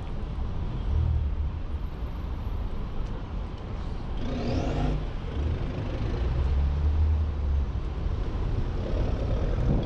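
City street traffic: motor vehicles passing with a low engine rumble that swells twice. A brief rising whine about four seconds in.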